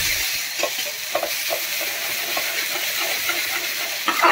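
Ginger-garlic paste sizzling in hot oil in a steel pan, stirred with a metal ladle that scrapes and clinks against the pan, with a louder clatter near the end.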